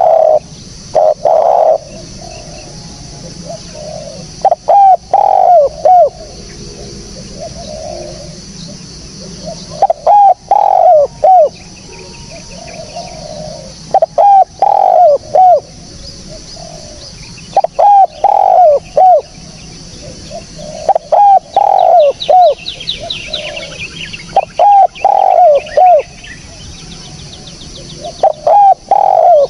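Spotted dove cooing over and over, each phrase a short run of a few low coos, repeated about every three to four seconds. A small bird chirps faintly in the background partway through.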